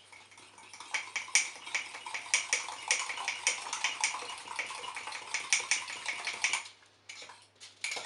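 Fork beating egg and sugar in a ceramic mug: a fast, steady run of clinks as the metal tines strike the inside of the mug. The beating stops near the end, followed by a couple of single taps.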